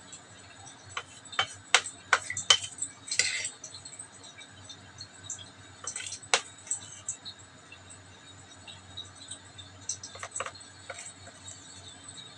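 A thin metal fork clinking and scraping against a stainless steel bowl while raw crabs are turned in a dry coating: a quick run of sharp clinks in the first few seconds, two more about six seconds in, and a few near the end.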